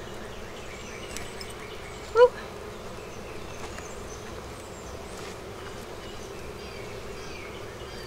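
Honeybees buzzing in a steady hum around an open hive, with a few faint scrapes of a hive tool on the wooden frame top bars. About two seconds in there is one brief, louder pitched sound.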